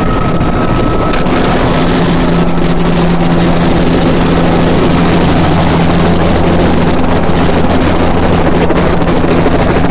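Helicopter engine and rotor running steadily on the ground, heard loud from inside the cabin: a constant low hum with a fast repeating rotor beat, growing a little stronger about a second in.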